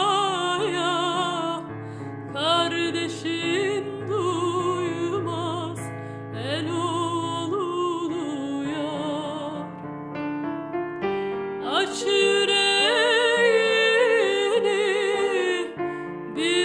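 A woman singing a Turkish song with wide vibrato over piano accompaniment. The voice drops back for a moment about ten seconds in while the piano carries on, then returns strongly.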